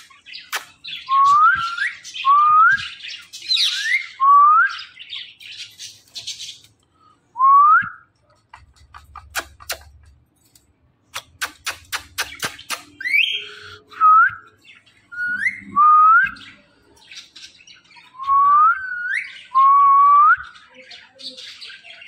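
Caged green parakeet giving about a dozen short whistles, each rising sharply at its end, between bursts of harsher chatter and runs of rapid clicking.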